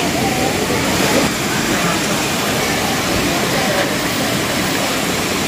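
Indistinct chatter of people in the background over a steady rushing hiss.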